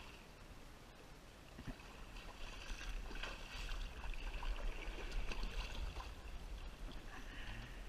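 Kayak paddle dipping and pulling through the water, with splashing and dripping that grow louder a couple of seconds in, over a steady low rumble.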